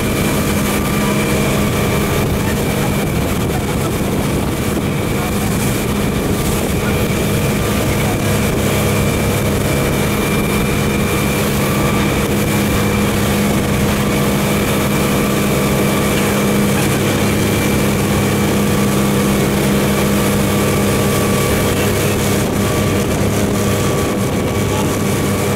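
Motorboat engine running steadily at a constant speed, over a continuous rushing hiss.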